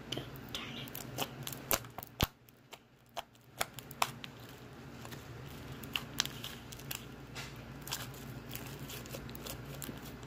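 Light blue slime being stretched, folded and poked by hand, giving irregular sharp clicks and small pops as it sticks to and pulls off the fingers and countertop.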